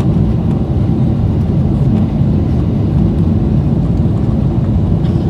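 Steady low rumble of a jet airliner's engines and rushing air, heard from inside the cabin during the climb after takeoff.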